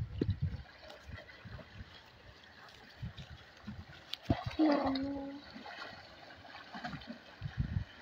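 Water splashing and sloshing as a man wades and lunges through a shallow river, with a few low thuds and a short held call about halfway through.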